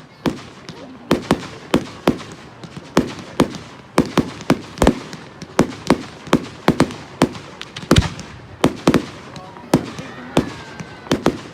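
Fireworks going off in a rapid barrage: sharp bangs, two or three a second and irregularly spaced, over a continuous crackle.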